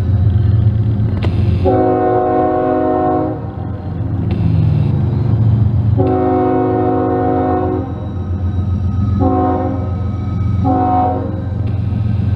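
Diesel locomotive horn sounding a multi-note chord in a sequence of warning blasts for a road crossing: two long blasts, then two short ones, with another beginning at the end. Beneath it runs the steady low rumble of the lead Union Pacific locomotive's diesel engine as the loaded coal train approaches.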